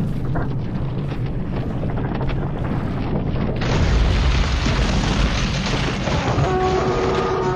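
Battle sound effects: a dense low rumble, with a sudden heavy boom about three and a half seconds in. Several held tones come in near the end.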